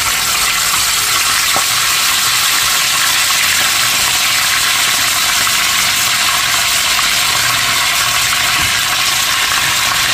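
Onion, garlic and ginger paste sizzling steadily in hot oil in a non-stick pan, just added to be fried.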